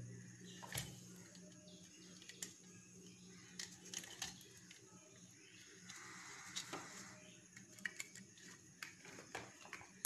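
Faint, scattered clicks and scrapes of a small screwdriver working the brass terminal screws of a switch-socket board, over a low steady hum.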